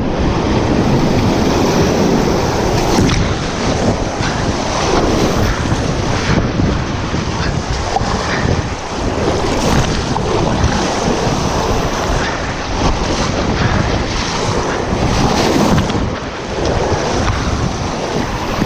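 River rapids rushing and splashing without a break, with wind noise buffeting the microphone.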